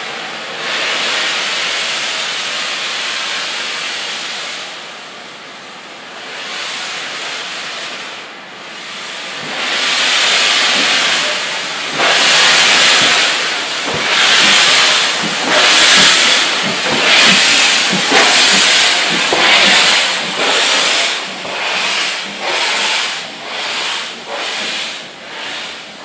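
Steam locomotive hissing steam, then starting off: heavy exhaust beats about one a second, quickening and fading toward the end.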